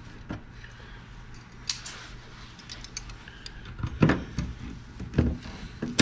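Pliers bending scored aluminium tabs back and forth to break them off, giving scattered clicks and clinks, with two louder knocks about four and five seconds in.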